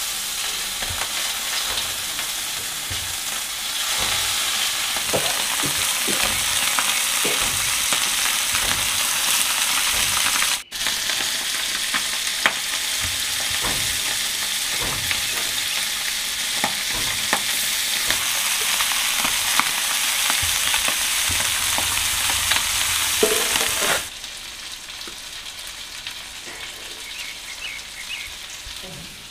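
Small marinated whole fish frying in hot oil in a black iron pan: a steady sizzle with scattered light clicks and taps as the fish are laid in. It breaks off for an instant about a third of the way through, and the sizzle falls much quieter about five seconds before the end.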